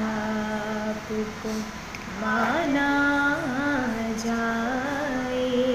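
A woman singing a devotional kalam solo, holding long notes with slow rises and falls in pitch and a dip and lift about two seconds in.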